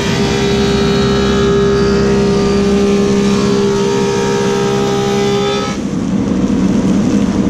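Woodmaster 725 planer with a helical cutterhead running and planing a black cherry slab: a loud, steady machine whine. About three quarters of the way through, the high cutting whine drops away as the board clears the cutterhead, and the machine keeps running.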